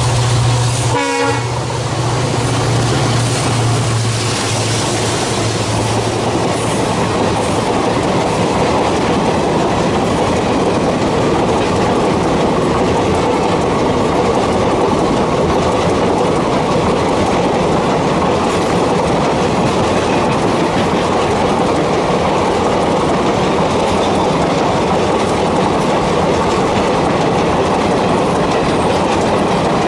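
WDP-4B EMD diesel locomotive passing at speed: its engine's deep drone sweeps past with a falling pitch about a second in and fades over the next few seconds. A long train of passenger coaches then rolls by with steady wheel clickety-clack and rumble over the rails.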